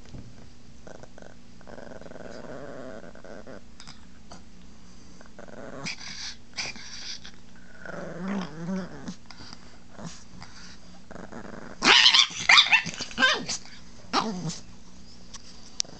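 Chihuahua growling in low spells, then breaking into a loud outburst about twelve seconds in and a shorter one soon after: warning growls of a small dog guarding its owner.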